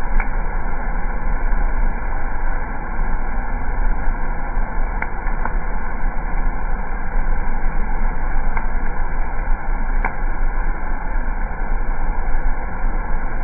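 Roasted coffee beans churned by the rotating stirring arms of a coffee roaster's cooling tray: a steady rushing, rustling noise over a constant low machine hum, with a handful of sharp single clicks scattered through it.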